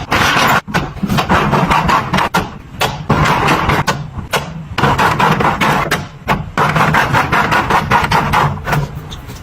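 Kitchen items being handled and set down: a rapid run of knocks and clatter, with rustling between.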